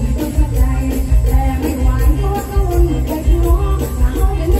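Mor lam band playing live over a loud sound system, with a woman singing the melody over a heavy, steady bass beat.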